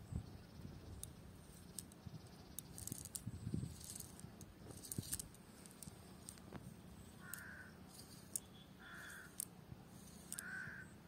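A crow cawing three times in the second half. Earlier there are soft rustles and clicks as a cast net is gathered up by hand.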